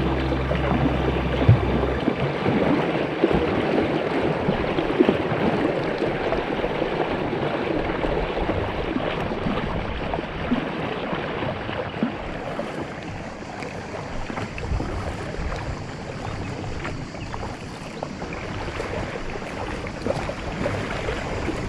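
Water lapping and splashing close around an inflatable kayak's hull as it is paddled along a calm river, a steady crackling wash.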